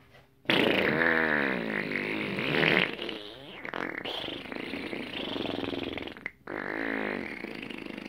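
Long fart noises with a wavering pitch. The first starts abruptly about half a second in and trails on for several seconds; after a brief break a second one begins near the end.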